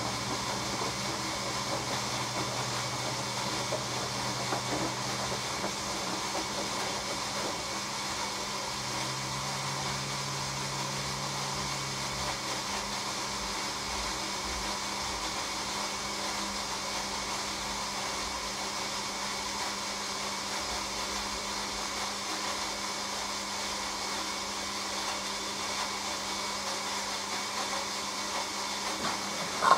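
Hoover AXI front-loading washing machine running on its delicate 40°C wash, in the main wash phase: a steady hiss. A low hum sounds for the first few seconds and again for a few seconds starting about nine seconds in.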